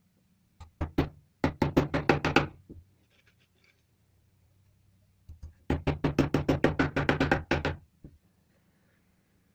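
Hammer tapping on a wooden board: two runs of quick, light blows of about seven a second, one about a second in and a longer one from about five seconds in.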